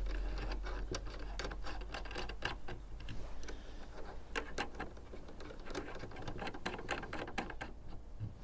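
Small brass hose adapters clicking and scraping against each other and a metal outdoor tap as one is fitted and screwed onto the tap's spout: many irregular light clicks, several a second.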